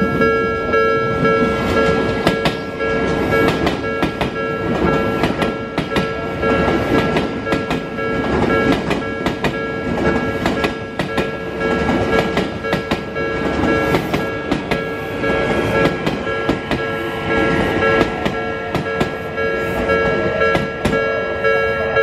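Japanese level-crossing warning bell sounding steadily while Odakyu electric commuter trains pass at low speed, their wheels clacking over the rail joints.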